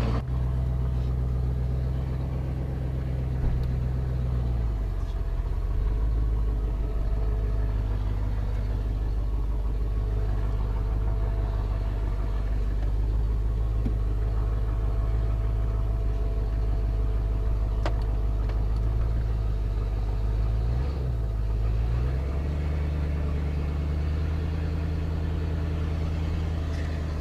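Carbureted 351 Windsor V8 in a 1991 Ford F250 idling steadily, its note shifting about five seconds in and again around twenty-one seconds.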